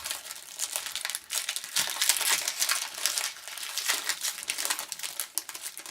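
Foil trading-card pack wrapper crinkling in the hands as it is torn open, an irregular run of crackles.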